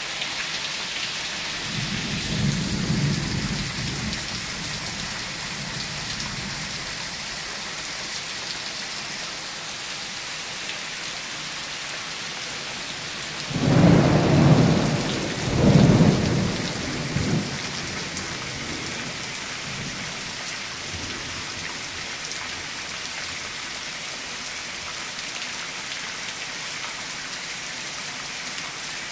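Steady rain falling, with a low rumble of thunder a couple of seconds in and a much louder roll of thunder about halfway through that swells twice before fading.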